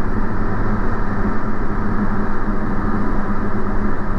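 Diamond DA40's piston engine and propeller running steadily, heard from inside the cockpit during a circuit approach.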